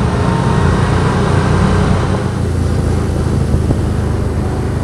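ATV engine running steadily under way, with wind and road noise on the onboard microphone; the sound changes slightly about two seconds in.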